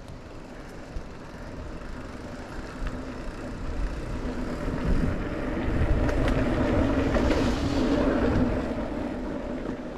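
Steady vehicle rumble and road noise that swells from about four seconds in and eases off near the end.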